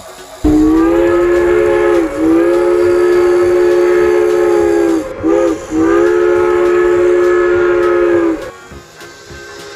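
A train horn sounding a chord of several notes: a long blast, another long blast, two short toots, then a final long blast that cuts off near the end.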